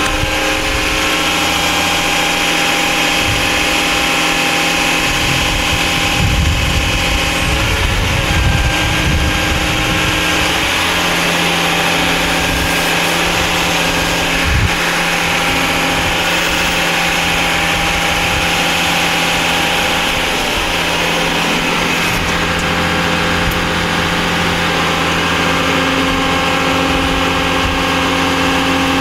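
Caterpillar 988H wheel loader's diesel engine running steadily as the boom lifts the bucket through a hydraulic cycle test, the engine note shifting slightly as the load changes.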